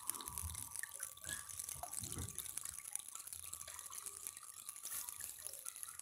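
Steady trickle of water falling from the spout of a tiered cement-and-sand waterfall fountain into the water of the bowl and basin below.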